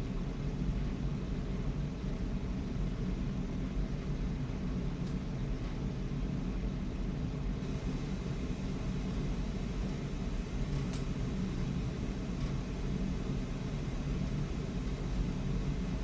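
Steady low rumble of background noise, with two faint clicks, about five and eleven seconds in.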